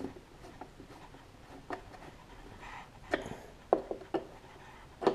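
A nut driver hand-tightening the bolts of a Briggs & Stratton 300E mower engine's recoil starter housing: soft scraping and ticking of the tool turning in the bolt heads, with a few sharper clicks as it is moved from one bolt to another.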